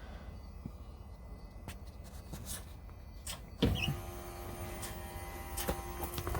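HWH hydraulic slideout pump motor starting suddenly about halfway through and running with a steady whine, driving the slideout's hydraulic cylinders out.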